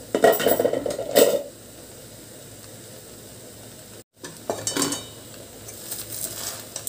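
A glass pot lid with a metal rim clattering as it is lifted off a metal kadai, followed a few seconds later by a spatula scraping and knocking through cooked rice against the pan.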